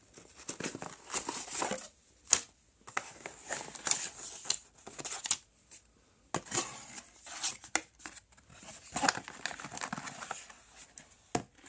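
Packaging being handled and unwrapped: crinkling and rustling with scattered sharp clicks and knocks, the sharpest about two seconds in and again near the end.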